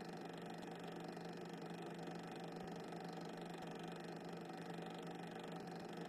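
Steady, unchanging electrical hum with hiss and no distinct events; no train sound stands out.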